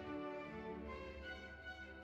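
Background music of long held notes over a steady low bass.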